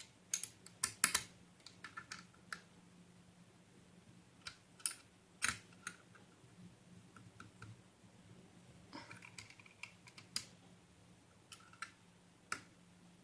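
Scattered clicks and taps of nose pliers and a spanner working on the nut and bolt that fix a ceiling fan's shaft, as the nut is tightened.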